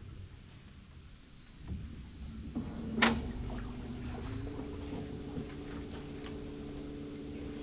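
A small motor starts running about two and a half seconds in with a steady hum, and its pitch steps up slightly partway through. A single sharp knock comes about three seconds in.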